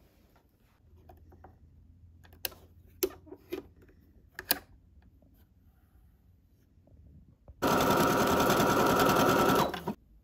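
Brother CS7205 computerized sewing machine running for about two seconds near the end, stitching in a fast steady rhythm and then stopping sharply. Before it come a few light clicks and handling knocks.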